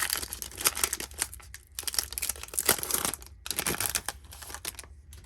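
Trading card pack wrapper being torn open and crinkled by hand, in several bouts of crackling that die down near the end.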